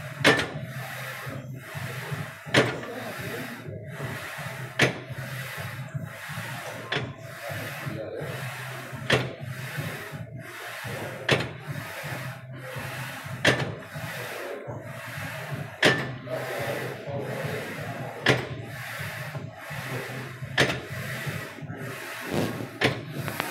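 Gym leg exercise machine worked in steady repetitions: a sharp knock about every two seconds as each rep bottoms out, with rubbing of the moving parts in between, over a steady low hum.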